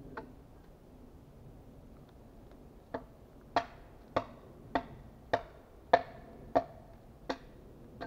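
Small axe chopping at a dry, dead standing trunk: eight sharp wooden knocks in a steady rhythm about 0.6 seconds apart, each with a short ring of dry wood, after a single faint knock at the start.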